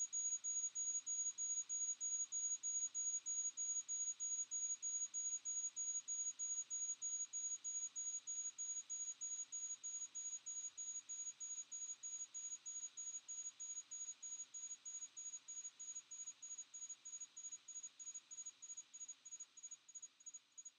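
A rapid run of high-pitched electronic beeps, about three a second, getting shorter and fainter toward the end and dying out.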